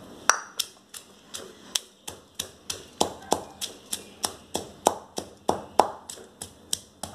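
Stone pestle pounding dried chilies, garlic and shallots into a chili paste in a stone mortar: sharp, regular knocks, about three a second.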